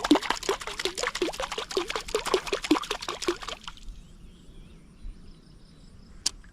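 Water splashing rapidly and irregularly, several slaps a second, stopping about three and a half seconds in; a single sharp click near the end.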